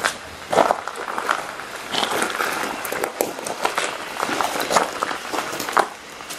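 Spirit box sweeping through radio frequencies: a continuous hiss of static broken by many short, choppy fragments of sound.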